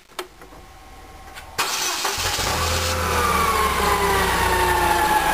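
Forklift engine starting: a click, then the engine cranks and catches suddenly about a second and a half in. It then runs with a low hum and a whine that falls slowly in pitch as it settles toward idle.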